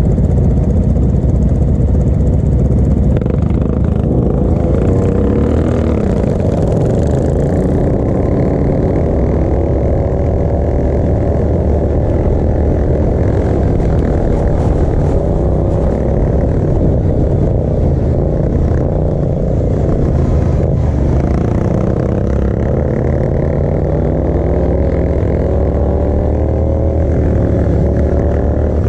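Racing ride-on lawn mower's engine heard from on board, running hard and rising and falling in pitch as it revs up on the straights and eases off into the turns, over a steady rumble from the machine and track.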